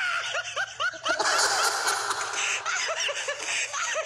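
A man laughing hard, a quick run of short high cries several times a second, over a hissy background noise through the middle.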